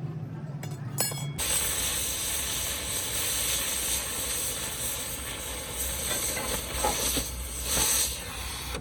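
A loud, steady hiss starts abruptly about a second and a half in, over a low hum, and runs on evenly.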